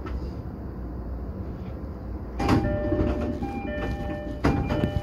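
Commuter train's sliding passenger door opening at a station stop: a sudden burst of air and movement about two and a half seconds in, then the door chime repeating its two alternating notes, with a second sharp burst near the end. A low rumble from the stopped train runs underneath.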